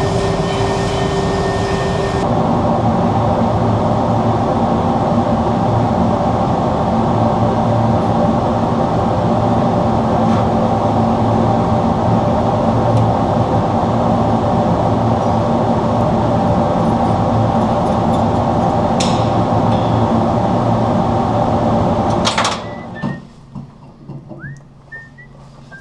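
A workshop machine running steadily with a low hum and several held tones, which stops abruptly about 22 seconds in.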